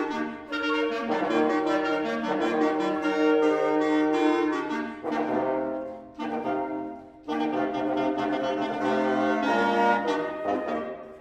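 A quartet of French horns playing sustained chords, with a couple of short breaks and fresh entries between phrases.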